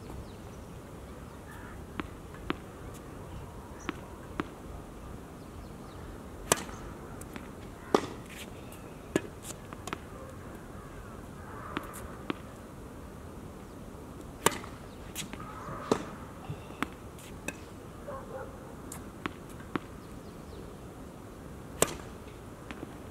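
Tennis balls struck by rackets and bouncing on a hard court during a rally: sharp, separate pops every second or two, some loud and some faint.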